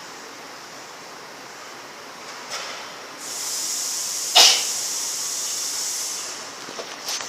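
A steady hiss that swells louder and higher about three seconds in and holds for about three seconds, with a sharp click in the middle of the louder stretch and a few small ticks near the end.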